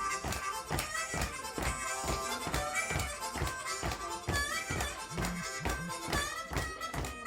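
Harmonica playing a melody with bent notes over a steady rhythmic beat.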